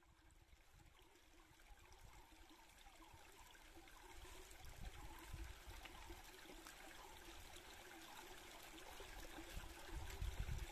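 Faint stream of water trickling and flowing, fading in from silence and slowly growing louder, with a low rumble building near the end.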